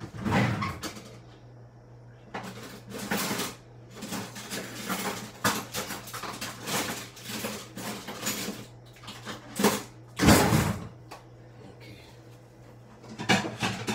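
Kitchen handling noises: a string of short knocks, clinks and rattles of dishes, pots and cupboard doors, with a louder clatter about ten seconds in, over a steady low hum.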